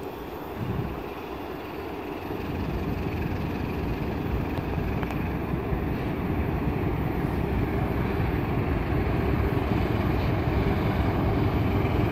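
Diesel-electric locomotive of a passenger train approaching at reduced speed, its engine rumble growing steadily louder as it slows for the track works.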